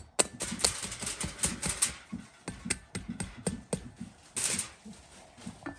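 Knife blade tapping on the hard, crisp roasted skin of a whole lechon pig: a quick run of sharp clicky taps, with brief crackly crunching during the first two seconds and again past four seconds.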